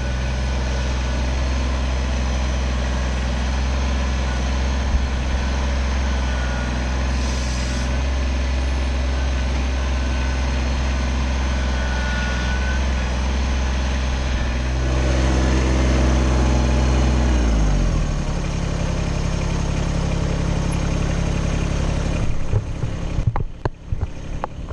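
Kubota BX25 sub-compact tractor's three-cylinder diesel engine running steadily at working speed; about three-quarters of the way through its pitch falls as the revs drop, and it settles at a lower speed. A few sharp clunks near the end.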